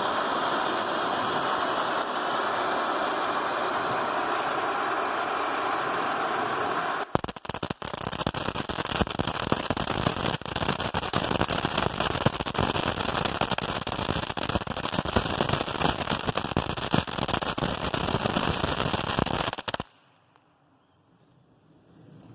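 Taco Tuesday consumer firework fountain burning: first a steady, loud hissing spray of sparks. About seven seconds in, it switches to a dense crackling of many small pops. The crackling cuts off suddenly near the end as the fountain burns out.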